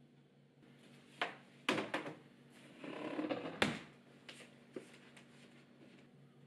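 Kitchen items being handled: a few sharp knocks and clicks, with a short rustling scrape in the middle and a few lighter ticks after.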